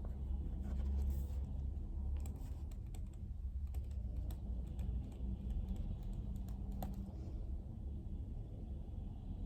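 Typing on a computer keyboard: irregular runs of key clicks, thinning out near the end, over a steady low hum.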